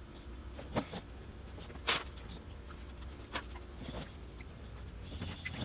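Scattered short scratches and taps from boxes of plenum CAT6 cable being handled and marked up, the strongest about two seconds in, with a faint squeak near the end, over a low steady hum.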